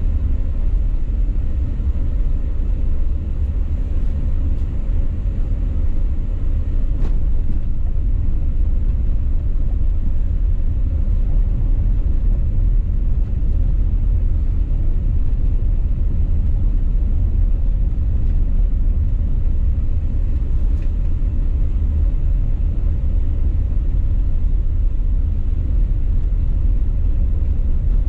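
Car driving on an unpaved road, heard from inside the cabin: a steady low rumble of road and vehicle noise.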